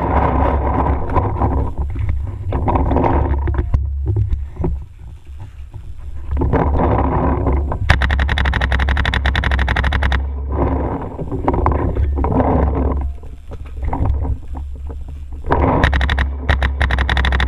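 Paintball marker firing rapid strings of shots, about eight seconds in and again near the end, over a steady low wind rumble and scuffing movement noise on the microphone.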